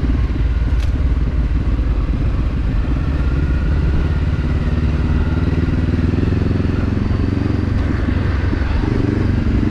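Motorcycle engine running steadily while riding along a dirt trail, with a single brief click about a second in.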